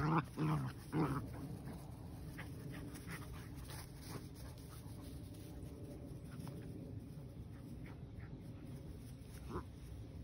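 Golden retriever puppies play-wrestling: a few short, loud barks in the first second, then much quieter, with faint scuffling and one small sound near the end.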